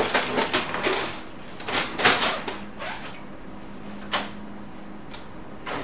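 HP LaserJet P3005 laser printer being shifted and pushed into place on a desk: a quick run of knocks and scrapes from its plastic case, then a few separate sharp clicks.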